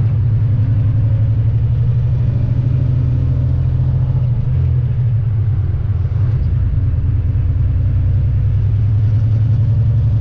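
Diesel engine of a Volvo VNL semi truck pulling under way: a loud, steady low drone with a fast even pulse, its note changing briefly about halfway through.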